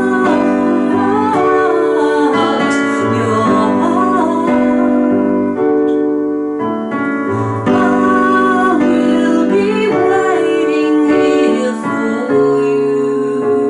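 A woman singing a melody with vibrato over piano accompaniment, the held piano chords changing every second or two.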